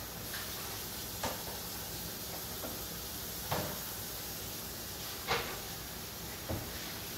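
Scattered knocks and clunks of kitchen utensils and items being handled at a counter, about five at uneven intervals and the loudest a little past halfway, over a steady background hiss.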